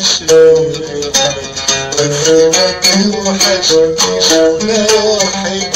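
Instrumental passage of Arabic music: an oud plucking a quick melody of short notes.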